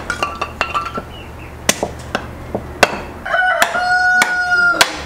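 A large cleaver splits kindling on a wooden chopping stump, with sharp wooden knocks at irregular intervals. A rooster crows from about three seconds in, one long, steady call heard over the chopping.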